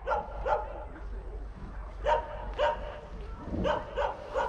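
A dog barking about seven times in short pairs and threes.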